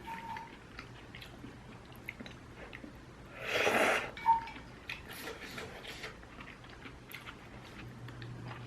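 Eating ramyun noodles: soft chewing and small utensil clicks, with one louder slurp about three and a half seconds in, followed by a brief clink of utensil on the bowl.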